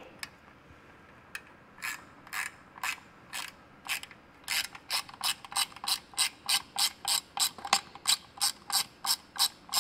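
Hand ratchet clicking as it drives in the screws that hold a convertible top's front trim strip. The clicks come about two a second at first and quicken to about three a second from about halfway in.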